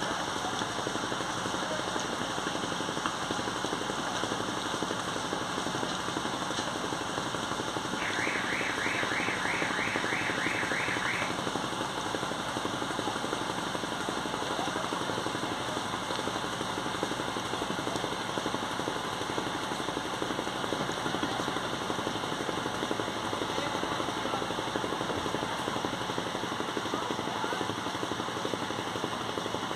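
Boat engine running steadily, a constant drone. About eight seconds in, a short run of about nine quick high chirps lasts some three seconds.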